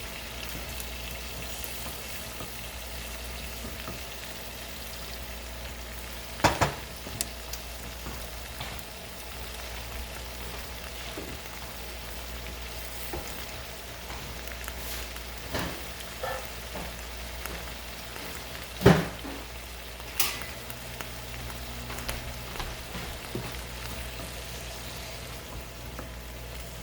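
Shrimp frying in a pan with garlic, a steady sizzle, with a few sharp knocks scattered through it, the loudest about two-thirds of the way in.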